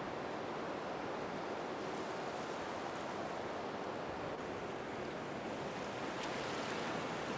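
Steady, even rushing noise with no tones, much like surf; a little more hiss creeps in near the end.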